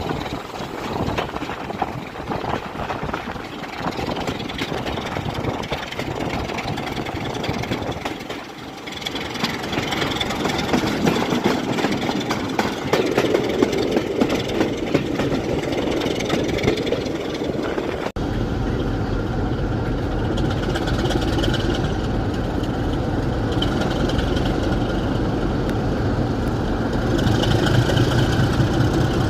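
Railway locomotive engine running: a rough, fluctuating engine sound, then, after an abrupt cut about two-thirds of the way through, a steady low engine drone like a locomotive at idle.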